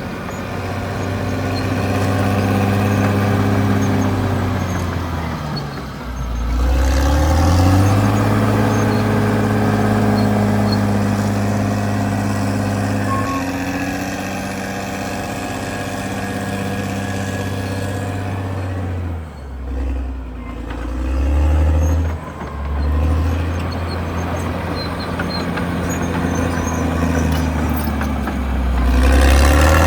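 Caterpillar D6R XL bulldozer's diesel engine working under load. Its engine speed sags and picks up again several times, most deeply about two-thirds of the way through.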